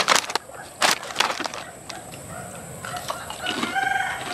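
A rooster crowing, one long held call starting about three seconds in. Before it, sharp crackles from a plastic chip bag being rummaged.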